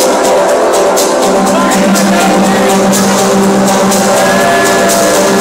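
Electronic dance music played loud over a club sound system, with held synth tones and a steady beat of sharp high percussion.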